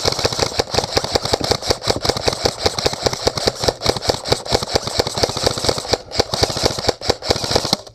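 Airsoft electric gun (AEG) firing a long, unbroken full-auto burst from a high-capacity magazine as suppressive fire: a rapid, even stream of shots over the whir of the gearbox. It stops suddenly near the end.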